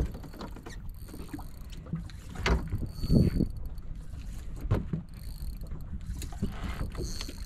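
Steady low rumble of a small fishing boat at sea, with a few dull knocks and clunks on board.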